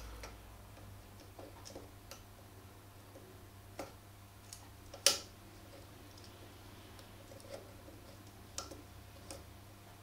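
Scattered small metallic clicks and ticks as digital calipers are set against and adjusted on the peened rivet pin of a new chain's connecting link, checking how far the pin head has mushroomed. One sharper click comes about five seconds in, over a faint steady low hum.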